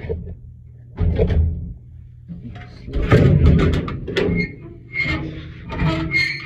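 Sheet-metal furnace blower assembly scraping and clunking against the cabinet as it is slid out, in irregular bursts with a few brief metallic squeals and rings.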